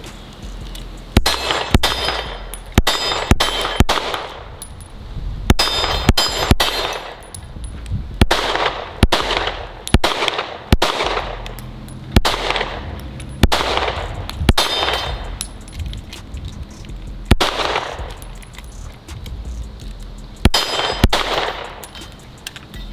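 Springfield Echelon 4.0C 9mm pistol firing a string of about eighteen shots at an uneven pace, with a few short pauses, and steel targets clanging as they are hit.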